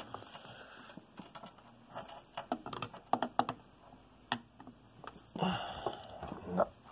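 A screwdriver clicking and clinking against a chainsaw's metal bumper spikes and housing while the spikes are prised into place. The clicks are light and irregular, with a longer scraping stretch about five and a half seconds in.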